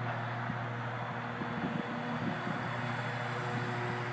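Steady buzzing hum of a WLToys V911 electric micro RC helicopter's motor and rotor in flight. Brief gusts of wind rumble on the microphone about one and a half to two seconds in.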